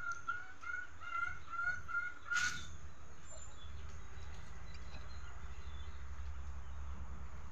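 Domestic fowl calling in a quick run of short, evenly spaced notes for the first two seconds or so. The calls end with a sharp knock, after which only a low steady rumble remains.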